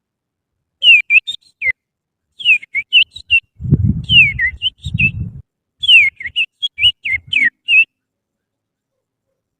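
Oriental magpie-robin (kacer) song imitated by a person whistling with the little finger: four runs of quick whistled notes, many sliding downward, with short chirps between them. A low rumble sounds under the third run.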